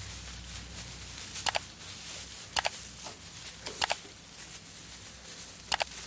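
Four short, sharp clicks, the third one doubled, over faint rustling and a low steady hum.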